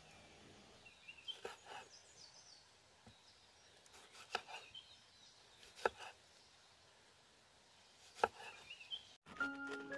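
Large kitchen knife cutting tomatoes on a round wooden chopping block: a handful of sharp, uneven knocks as the blade strikes the wood, often a second or more apart. Music comes in about a second before the end.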